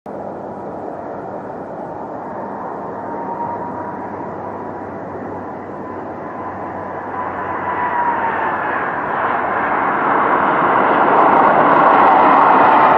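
Airbus A330 jet engines whining and rushing as the airliner lands, with a steady high whine that dips slightly after touchdown. The engine noise then swells steadily louder through the second half as the plane rolls out on the runway, typical of reverse thrust being applied.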